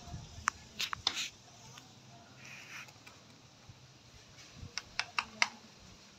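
Sharp clicks in two short runs of about four each, one about a second in and one near the end, with quiet between.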